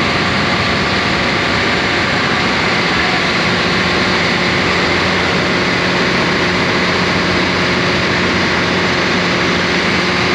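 Ship's engine running steadily, a constant low hum under a broad rushing noise.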